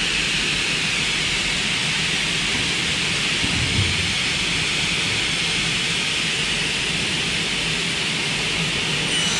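Faster F88 double-head aluminium cutting saw running with both heads, a steady loud rushing noise as its circular blades cut through an aluminium window profile.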